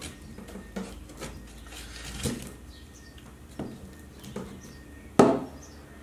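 A glue stick dabbed and rubbed over cardboard, with a handful of light knocks on the tabletop and one sharper knock about five seconds in.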